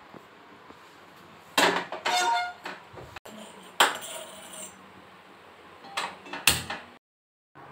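A small stainless-steel saucepan clanks down onto a gas stove's pan support, ringing briefly, and knocks against it again about two seconds later. Near the end come a couple of sharp clicks from a hand-held spark gas lighter at the burner.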